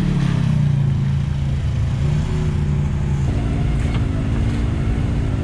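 Side-by-side UTV engine running under load as it climbs a rocky ledge, its pitch easing slightly down. About three seconds in, the sound switches abruptly to another side-by-side's engine heard from on board, running steadily while driving.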